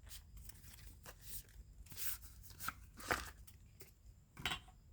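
Faint handling noises: scattered light clicks, taps and rustles as a knife's box and packaging are handled, the loudest a little after three seconds and near the end.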